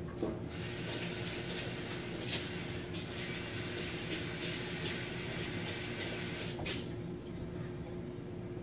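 Water running with a hiss for about six seconds, breaking off briefly about three seconds in.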